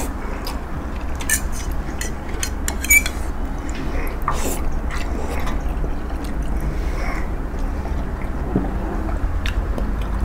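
Eating sounds: wet chewing and slurping with scattered small clicks, over a steady low hum.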